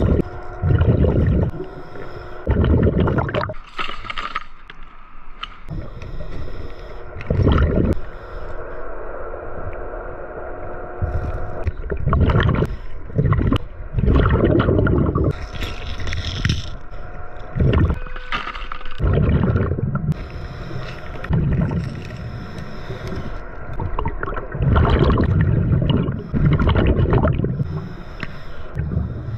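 Scuba diver's regulator breathing heard underwater: exhaled bubbles rumble and gurgle in loud bursts every few seconds.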